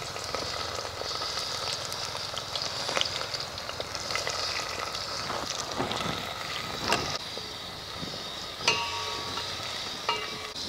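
Sliced onions and chopped tomatoes sizzling in hot oil in a steel pot, with a wooden spatula stirring and knocking against the pot several times; two knocks near the end leave the pot ringing briefly.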